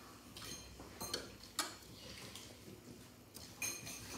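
Metal spoon and fork clinking and scraping on a ceramic plate while eating: a handful of separate sharp clinks with a short ringing tone, the loudest about a second and a half in and another pair near the end.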